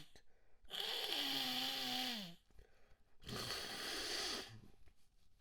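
A person blowing their nose hard twice, each blow lasting over a second, the first carrying a pitched tone that drops at its end.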